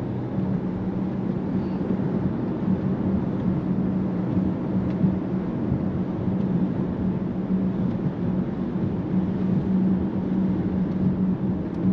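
Cabin noise of a 2024 Mercedes-AMG GLE 63 S cruising on a wet highway. Steady tyre and road noise carries a constant low drone, with no change in pitch.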